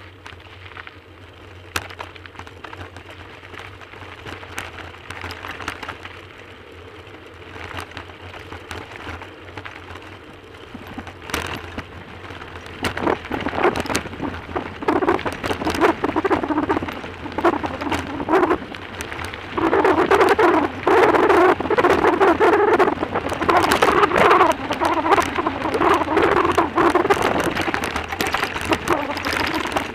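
Bicycle riding over a rough dirt and gravel road, with tyres crunching and the bike rattling over bumps in a dense crackle of small knocks. It grows much louder and rougher about halfway through.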